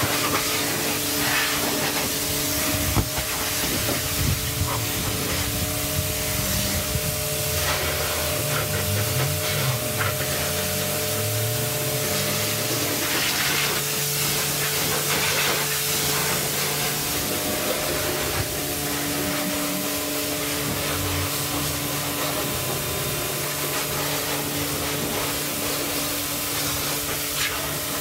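Pressure washer spraying water onto a car's body and wheel: a steady hissing jet with a low steady hum underneath.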